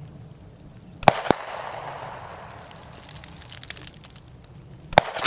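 Two .45 ACP shots from a 1911 pistol, heard from about 155 yards off. Each shot comes as a pair of sharp cracks about a quarter second apart, with a rolling echo after it. The two shots are about four seconds apart.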